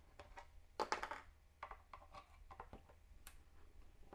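Faint clicks and scraping of a screwdriver working a small screw out of a Fluke 87V multimeter's plastic back case, with one louder scrape about a second in.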